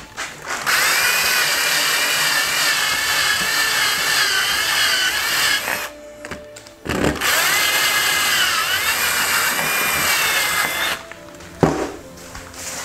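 Cordless drill running, most likely a step bit opening up a finger hole in thick-walled PVC pipe, in two runs of about five and four seconds with a short stop between. Its whine wavers in pitch under load. A knock comes near the end.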